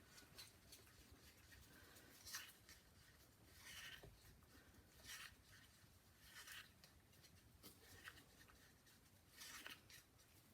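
Faint scraping strokes of a stirrer in a cup, mixing fine silver pigment powder into epoxy resin, one stroke every second or so.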